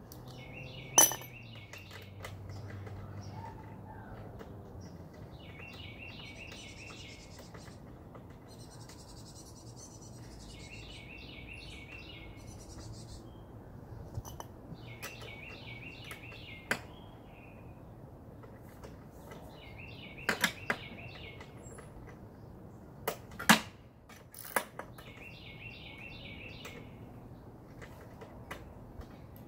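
A songbird repeats one short, high trilled phrase every four to five seconds, over a handful of sharp metallic clinks and taps from small parts and hand tools being handled on the lawn mower. The loudest clinks come about a second in and near the three-quarter mark.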